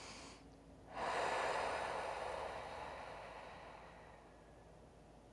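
A woman's long audible breath out through the mouth, like a sigh, starting suddenly about a second in and fading away over about three seconds.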